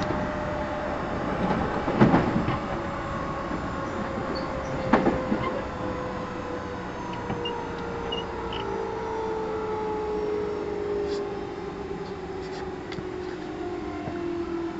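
Running sound inside a JR 211 series 5000-subseries electric train's motor car: the traction motor and gear whine falls steadily in pitch as the train slows, over a steady rumble of wheels on rail. Two sharp knocks come about two and five seconds in.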